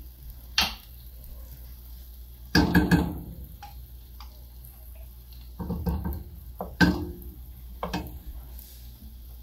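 A wooden utensil knocking and scraping against a glass jar as tomato puree is scraped out into a cooking pot: a string of separate knocks, the loudest cluster about three seconds in and more around six to seven seconds, over a steady low hum.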